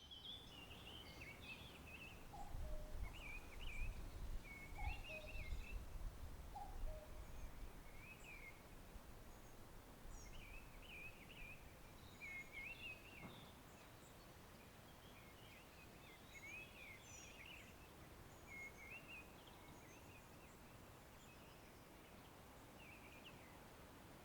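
Several songbirds singing short warbling phrases over and over, faint against a steady background hiss, in an English parkland in early summer. A low rumble of wind swells for the first several seconds, then dies down.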